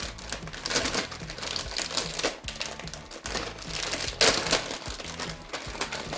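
Packaging crinkling and rustling as a pack of play-dough tools is opened by hand, with a louder crackle about four seconds in.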